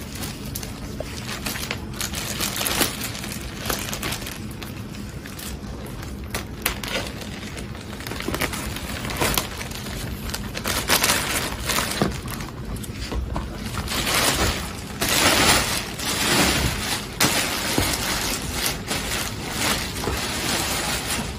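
Clear plastic wrapping being cut with scissors and pulled off a mattress topper, crinkling and rustling in irregular crackles that get louder and busier in the second half.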